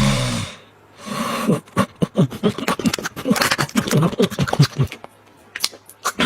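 A small dog makes a rapid string of short vocal sounds and clicks for about four seconds, after a loud breathy sound at the very start; a few scattered clicks follow near the end.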